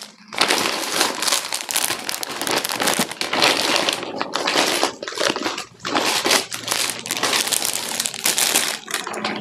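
Plastic packaging and a plastic shopping bag crinkling and rustling as packets are handled and rummaged through, with short pauses about four, six and nine seconds in.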